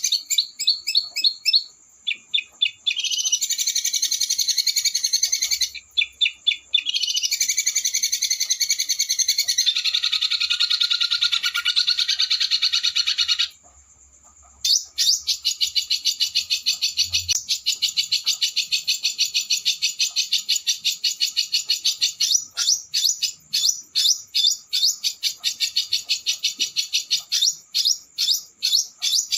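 Small songbird singing high, very fast rolling trills and rattling bursts of notes in long phrases, with a brief silent break about halfway. It is a masteran, a recorded tutor song played to teach a murai batu.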